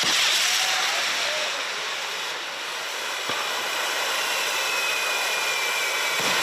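Handmade set-piece fireworks (kasabi, 'umbrella fire') spraying sparks: a steady hissing, crackling rush, with a sharp pop about three seconds in and a faint high whistle slowly falling in the second half.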